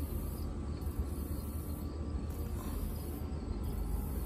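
Quiet outdoor background: crickets chirping faintly over a steady low rumble.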